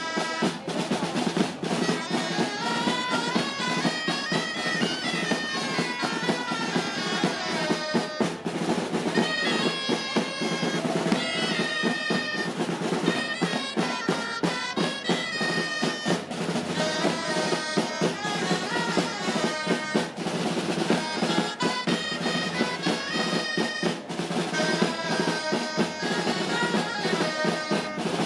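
Instrumental background music: a melody over a busy, steady drum beat.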